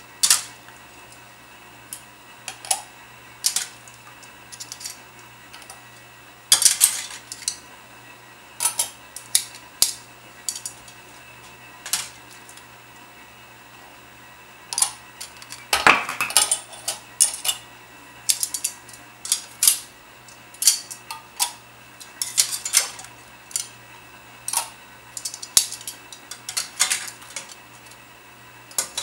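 Metal tongs clinking against a stainless steel pot and the metal canning lids in it, as lids are fished out of the water one by one. The clinks and clatters come irregularly, busiest in the second half.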